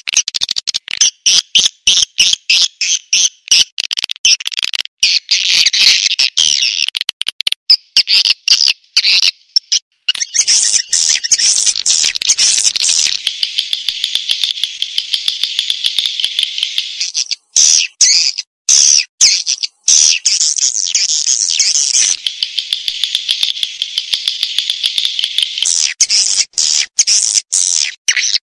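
Swiftlet calling-sound recording, a lure played to draw swiftlets into a nesting house: a rapid, high-pitched twittering chatter of many chirps a second, with short breaks about ten and eighteen seconds in.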